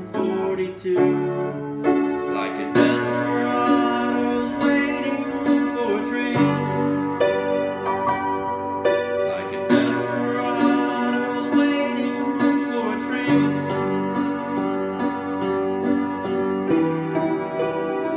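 Solo piano playing chords in the right hand over changing bass notes.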